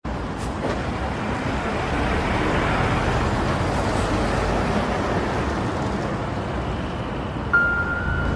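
Car driving, with steady engine and road noise heard from inside the cabin. Near the end a single steady high tone begins: the start of eerie background music.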